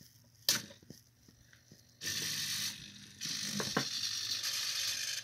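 A small walking toy robot's gear drive: a sharp click about half a second in as it is set going, then a steady whirring, ratcheting run of its gears from about two seconds in that dips briefly and resumes, with a couple of light knocks as it steps.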